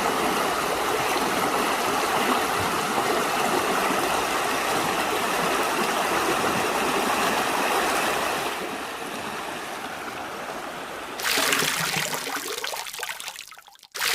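River water flowing, a steady rush. It turns a little quieter about two-thirds of the way in, then a louder rush breaks in abruptly near the end and fades away.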